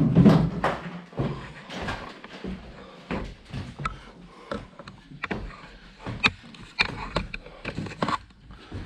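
Footsteps climbing a stairwell littered with broken plaster, an uneven run of knocks, scuffs and crunches from the treads and debris, heaviest about the first second.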